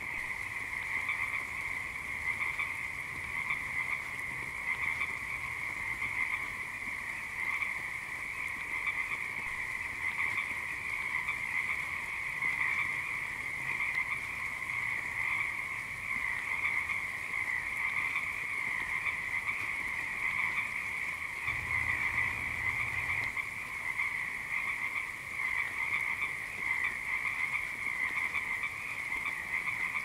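Frogs croaking in a steady, unbroken chorus of many overlapping calls, fairly high-pitched.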